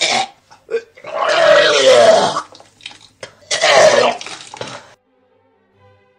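A person belching loudly: two long, rasping burps with a short gap between them, the tail of an earlier one at the start, then quiet near the end.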